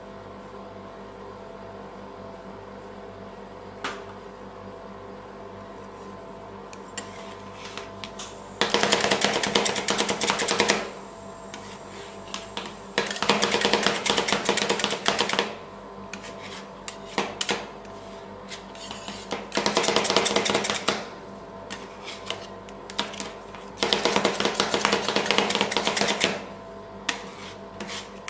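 Metal spatulas chopping fast against the stainless steel freezing plate of a rolled-ice-cream machine, mixing avocado into the cream: four bursts of rapid metal-on-metal tapping of about two seconds each, beginning about eight seconds in, with a few single taps between them. A steady hum runs underneath.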